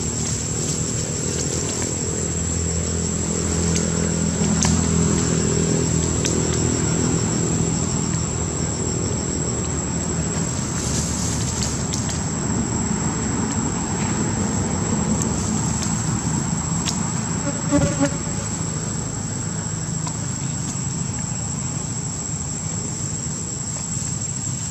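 Insects droning in a steady, high-pitched whine over a low hum, with a brief double squeak about three-quarters of the way through.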